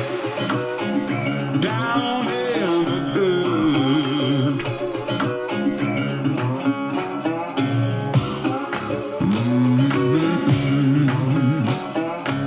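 A song with guitar and singing played back through a JBL SCS 178 satellite speaker, with almost no deep bass.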